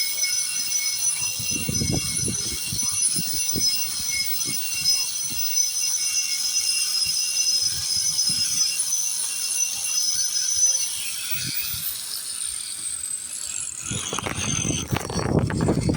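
Power grinder running with a steady high whine as it grinds paint off a concrete foundation, with irregular knocks as it works the surface. About twelve seconds in it is switched off and winds down with a falling whine, followed by rough scraping and handling noise.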